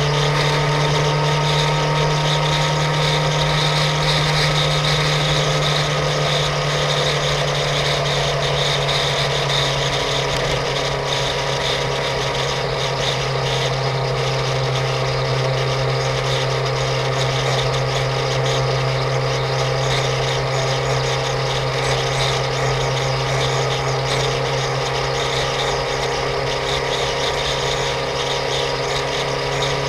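2005 Suzuki GSX-R750's inline-four engine running at a steady cruise, its drone holding a nearly constant pitch, with a steady rush of wind and road noise over it.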